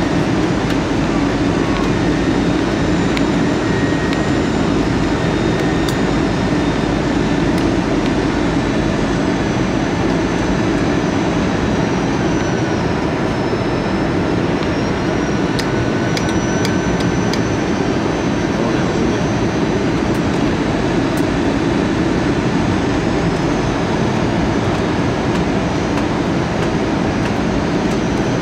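Cabin noise inside an AirAsia Airbus A320 on final approach: a steady, loud rush of airflow and jet engine noise, with a faint high whine that shifts in pitch about halfway through.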